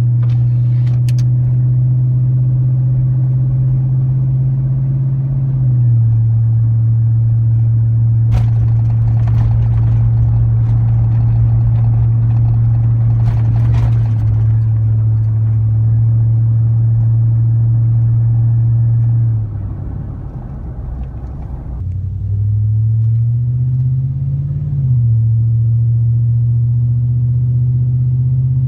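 A 5.3-litre LM7 V8 in a Chevy/GMC pickup running through a single-chamber performance muffler, with a steady low exhaust drone while cruising. About two-thirds of the way in, the note drops and quiets as the throttle eases off. It then climbs in pitch for a couple of seconds as the truck accelerates and settles back into a steady drone.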